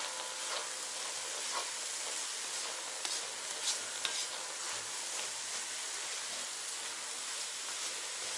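Pork pieces with onion and carrot sizzling in a kazan while being stirred with a wooden spatula. A steady frying hiss runs under scattered scrapes and knocks of the spatula against the pot.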